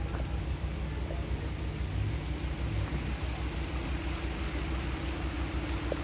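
Shallow creek running over rocky riffles, a steady rushing of water, under a low rumble and a faint steady hum.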